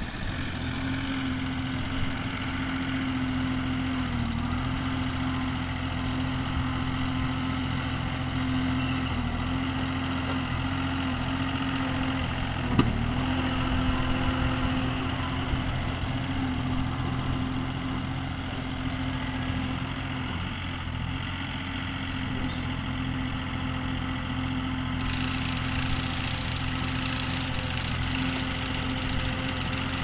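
Yanmar B32 mini excavator's diesel engine running steadily while it digs, its pitch dipping briefly a few times under load. A sharp knock comes about thirteen seconds in, and a hiss joins near the end.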